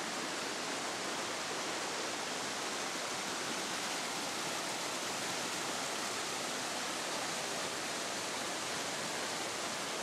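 Steady rush of flowing stream water, an even hiss with no breaks.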